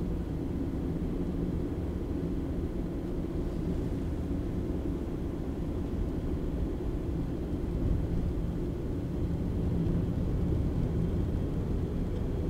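Cabin noise of a 2013 Honda Fit driving on a snowy road: the engine's steady drone and tyre rumble.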